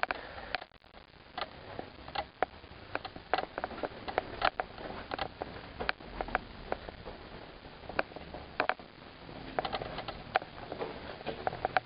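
Footsteps on a hard floor: irregular sharp taps and clicks, about one or two a second, sometimes in quick clusters, over a faint hiss.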